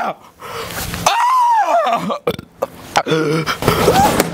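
A man's pained, wordless cries: a drawn-out moan that rises and falls in pitch about a second in, followed by lower groaning sounds near the end.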